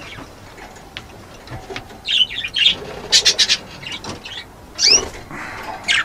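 Budgies chirping in three short bursts about a second apart, the last with quick rising notes.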